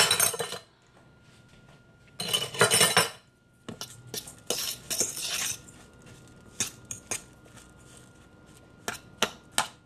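A metal fork scraping and clinking against a stainless-steel mixing bowl as a soft banana, rice and coconut mixture is stirred. There are a few short scraping bursts in the first half, then sharp separate clinks.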